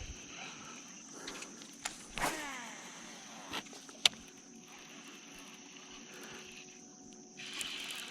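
Fishing rod and reel at work: about two seconds in comes a short whir that falls in pitch, then a sharp click about two seconds later. A faint steady winding follows as the crankbait is retrieved, all over a steady high-pitched hum.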